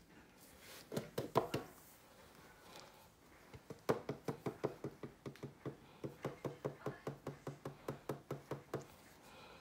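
A brief cluster of taps about a second in, then a rapid, even series of short knocks, about five a second, that stops near the end.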